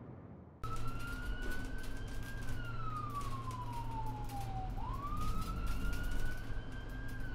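Police siren sound effect wailing, starting abruptly about half a second in. Its pitch rises a little, falls slowly over a couple of seconds, then rises again and begins another slow fall near the end.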